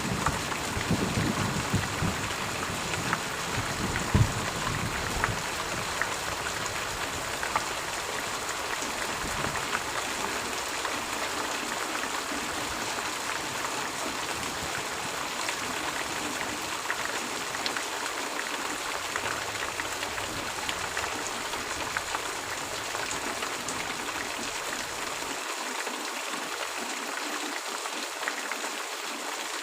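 Steady rain hissing, with the last of a low thunder rumble fading away over the first few seconds.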